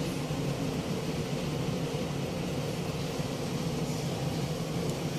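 An electric fan running with a steady hum and hiss.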